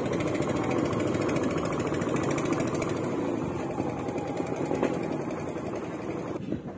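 Small motorboat engine running with a fast, hammering beat; most of the sound drops away sharply near the end.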